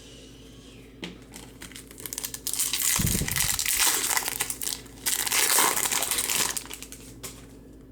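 Foil wrapper of a trading-card pack crinkling and crackling as it is handled, starting about a second in and loudest in the middle.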